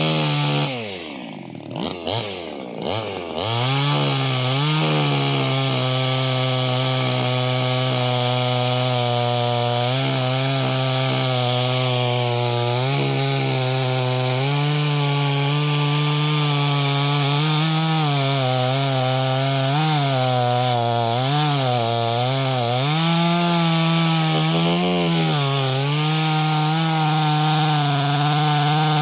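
Small two-stroke clone chainsaw cutting into a tree trunk at full throttle. The revs drop and pick up again in the first few seconds, then hold high with repeated small sags as the chain bogs in the cut: the lightweight saw is being pushed hard on a tree too big for it.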